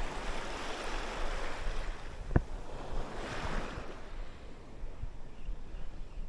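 Waves washing in and ebbing, with wind on the microphone; a single sharp click about two and a half seconds in.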